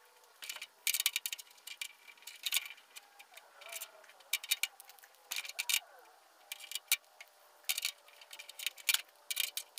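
Irregular light clicks and taps of small fuel-line fittings and hand tools knocking on a metal tool-cart tray as the fittings are worked out of a split length of old fuel hose.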